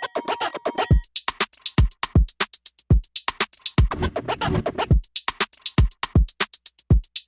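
Background electronic music with a drum-machine beat: punchy kick drums and hi-hats, with a noisy build-up about four seconds in.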